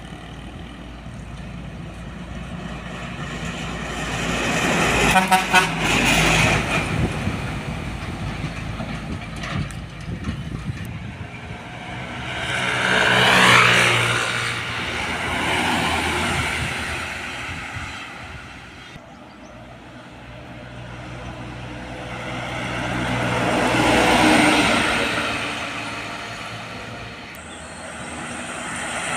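Heavy trucks passing on a road one after another, each engine swelling up and fading away, with horn toots among them.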